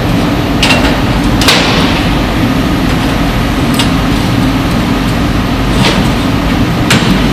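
Steady, loud drone of industrial machinery around a CNC plasma cutting table, with about five short, sharp metallic knocks scattered through it.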